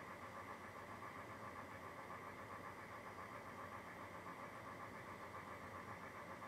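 Faint, steady mechanical hum with a hiss, unchanging throughout.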